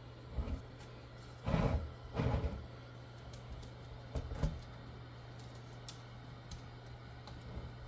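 Eibos Polyphemus filament dryer running with a steady low hum while a filament spool turns on its rollers in rotisserie mode. A hand on the spool adds a few short rubbing and knocking handling noises in the first half, then faint light clicks.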